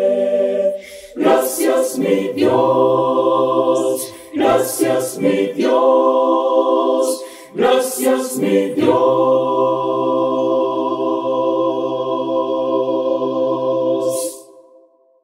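Mixed choir of women's and men's voices singing a cappella in sustained chords, in a few phrases with short breaths between. The last chord is held for several seconds, then dies away near the end.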